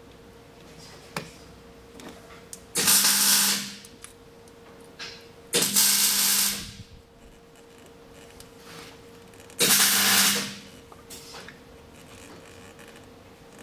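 A handheld power tool runs in three short bursts of about a second each, a whirring hiss with a steady hum under it.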